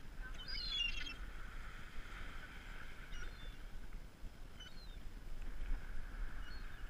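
Gulls calling: a short burst of high, bending calls about half a second in, then a few fainter calls, over wind buffeting the microphone and a steady hiss.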